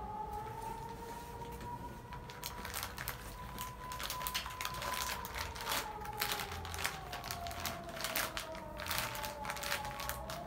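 Plastic sachet packets crinkling as they are handled and pulled out of a cardboard box, a dense run of crackles starting about two seconds in. A faint tone slowly rises and falls in pitch behind it.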